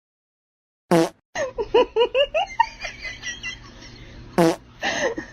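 A short, loud, pitched blast, followed by a person laughing in quick repeated bursts. A second short blast comes about three and a half seconds later.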